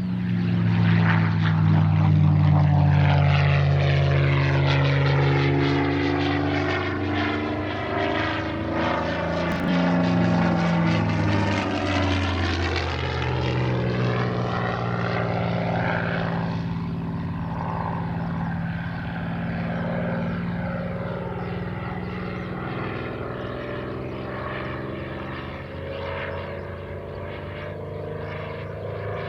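Vintage piston-engined fighter flying a low pass. Its propeller engine is loudest in the first few seconds, drops in pitch as it goes by, then keeps running steadily while it flies away, fading a little.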